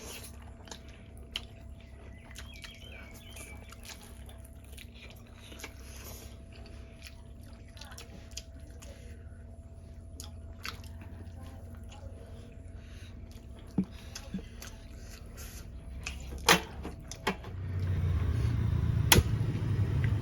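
Close-miked chewing of Samyang Buldak ramen noodles, with many small scattered mouth clicks over a faint steady hum. The chewing grows louder and heavier near the end.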